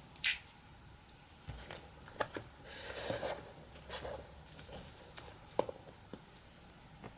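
Sealing stickers being peeled off a cardboard box: one short sharp rip about a third of a second in, then scattered light taps and rustling of the cardboard.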